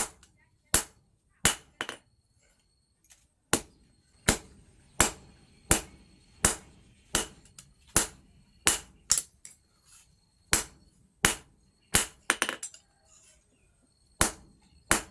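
Blacksmith's hand hammer striking steel on an anvil in a steady rhythm, about three blows every two seconds, each with a metallic ring, while a knife blade is forged. The hammering pauses briefly a few times.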